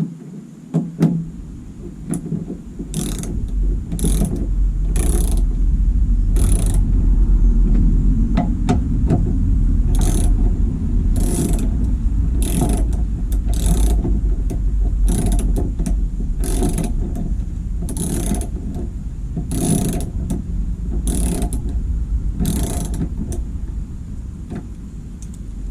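Ratchet wrench tightening the tail light assembly's fasteners, a short run of clicks on each back-swing, repeating every second or so, over a steady low rumble.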